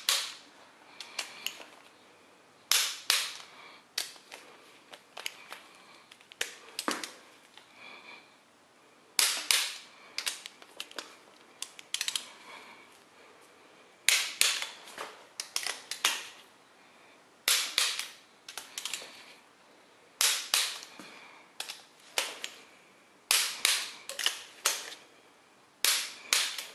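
Torque wrench clicking as cylinder head bolts are brought to 70 ft-lb, with smaller ratcheting clicks as the wrench is worked and reset on each bolt. A loud sharp click comes every two to three seconds, each followed by a quick run of lighter clicks.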